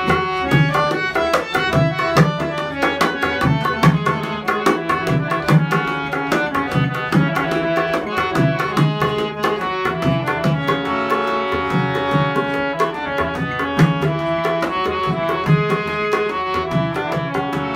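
Instrumental interlude of a Hindi devotional bhajan: a tabla keeps a steady rhythm under sustained melody notes from an accompanying instrument.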